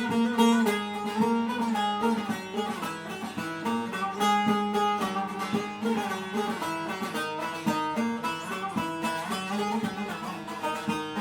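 Instrumental introduction of a Turkish song: a plucked string instrument picks a quick melody over a steady accompaniment.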